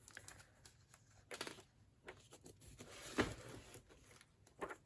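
Faint rustling of an old book's paper pages being handled and turned, three soft rustles with the loudest a little past three seconds in.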